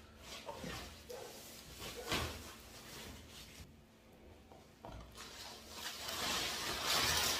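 Rustling and crinkling of a foam packing sheet being pulled off a subwoofer during unboxing, with a few light knocks of handling. The rustle grows loudest over the last two seconds.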